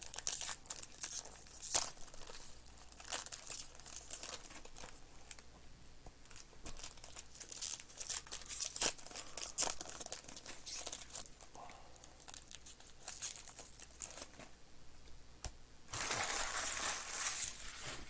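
Foil trading-card pack wrappers crinkling and tearing as 2021 Panini Mosaic Baseball packs are opened and handled, in many short crackles with a louder, denser stretch of about two seconds near the end.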